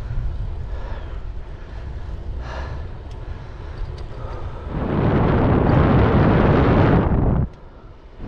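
Wind buffeting the microphone while riding a bicycle, a steady low rumble. About five seconds in, a much louder rushing noise swells up and then cuts off suddenly about two and a half seconds later.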